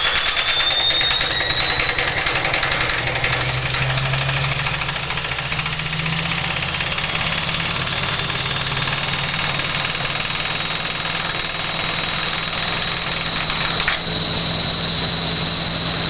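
Washing machine spinning at high speed with a deliberately unbalanced load: the motor's high whine rises in pitch over the first several seconds and then holds steady, over a fast rattling knock of the drum.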